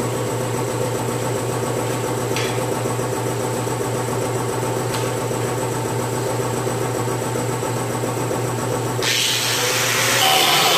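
Steady machine hum with two faint clicks. About nine seconds in, a loud high hissing whir starts: a hand-held cut-off wheel spinning up and beginning to cut into the truck's sheet-metal quarter panel.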